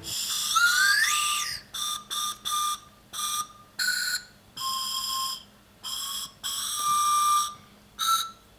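Whistle Pop lollipop whistles blown note by note to pick out a tune: about ten shrill notes, mostly at much the same pitch, some short and some held, with a rising slide about a second in.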